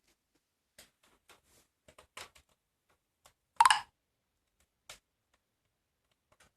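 Wood fire crackling in a fireplace: scattered sharp pops and snaps, with one much louder pop about three and a half seconds in.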